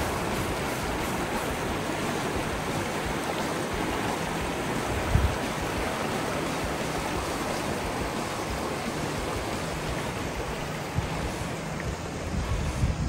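Fast, muddy river rushing steadily over rocks and rapids, with one brief low thump about five seconds in.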